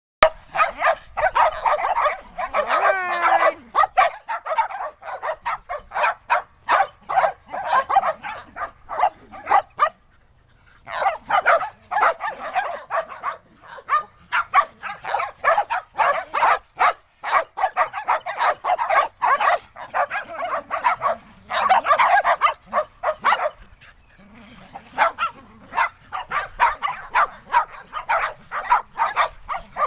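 A pack of five Shetland sheepdogs barking together, with rapid, overlapping sharp barks. There is a short lull about ten seconds in before the barking starts up again.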